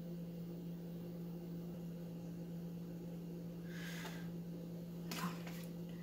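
Steady low hum with faint handling noise: a soft paper rustle about four seconds in as a paper stencil is lifted off the cup, then a light tap about a second later.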